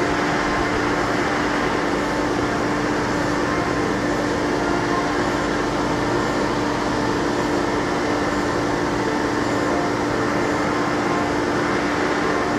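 Hermle B300 CNC machining centre milling a metal block under flood coolant. The spindle and end mill give a steady cutting noise with a constant pitched hum over an even hiss, unchanged throughout.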